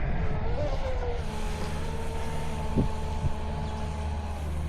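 Pro Boat Blackjack 24 RC boat's brushless motor whining on a speed run. The whine wavers in pitch about half a second in, then holds steady and fades near the end, over a steady low rumble.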